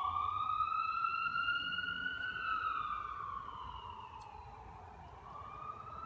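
A siren wailing, its pitch rising slowly for about two seconds, falling for about three, then rising again near the end.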